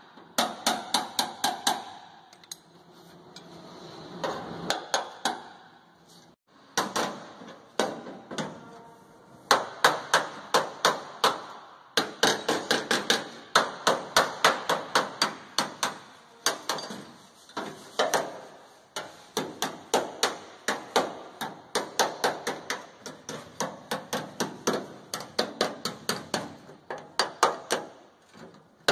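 Hand hammer striking rusted car body sheet steel: first driving a cold chisel to cut through the panel, then beating directly on the panel. The blows come in fast runs of several a second, broken by short pauses.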